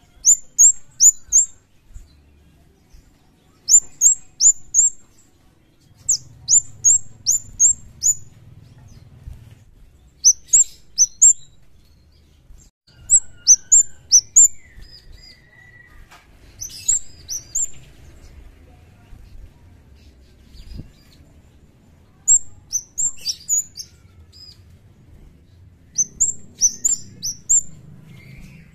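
Kemade (cigen jawa) calling. It gives very high, sharp chirps in quick runs of three to five notes, repeated every few seconds.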